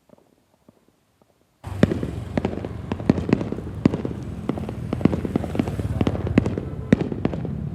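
Fireworks display going off: dense crackling with many sharp pops and bangs. It starts abruptly about a second and a half in and keeps up steadily.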